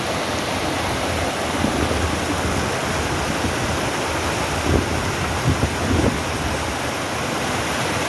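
Shallow mountain river rushing over boulders in small rapids: a steady, even wash of white water.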